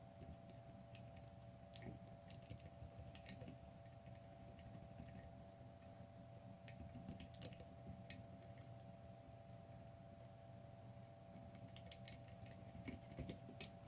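Faint, irregular small metallic clicks of a lock pick tool being worked in a Yale Superior/Platinum euro cylinder lock, over a faint steady hum.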